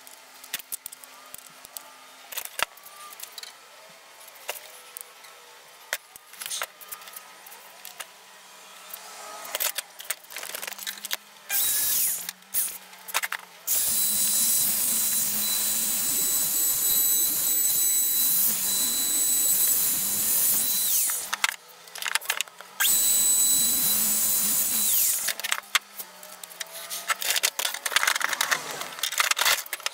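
A small handheld power tool runs with a steady high whine: a few short bursts, then two longer runs of several seconds each. Before and after it, light knocks and clatter of wood and tools being handled on the bench.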